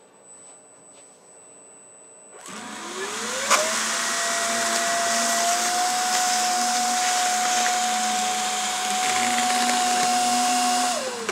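ANBT air cushion machine starting up about two seconds in. Its blower rises in pitch to a steady whine over a rushing of air as it inflates the plastic film into air cushions, then spins down near the end.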